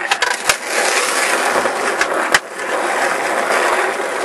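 Skateboard wheels rolling on rough pavement, a steady gritty rumble with two sharp clacks of the board, about half a second in and again a little past two seconds.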